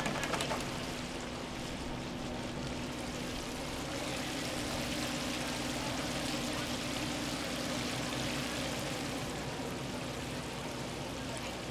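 Chicken deep-frying in commercial fryer baskets: hot oil bubbling and sizzling steadily, with a low steady hum underneath.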